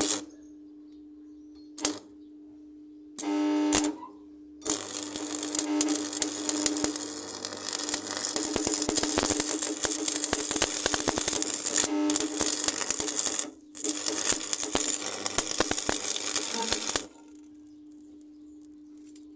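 Stick (arc) welder: a few short sputters as the arc is struck, then the steady crackling sizzle of the electrode burning as a steel pipe is welded to a steel wheel rim. The arc breaks briefly twice and stops near the end.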